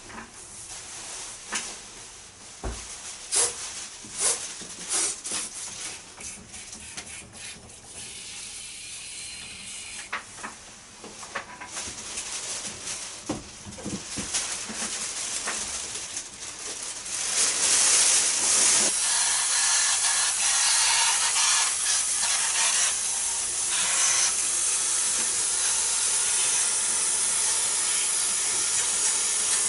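Cleaning liquid being sprayed onto the inside of a Daikin air-conditioner's indoor unit: a steady hiss that becomes much louder and continuous a little past halfway. Before that come scattered clicks and handling knocks.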